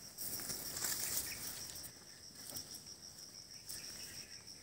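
Insects keep up a steady, high-pitched trill from the surrounding vegetation, with faint rustling in the first second or so.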